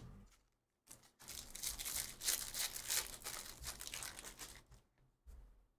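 Trading cards and their packaging rustling and crinkling as they are handled, a stretch of about three and a half seconds starting about a second in.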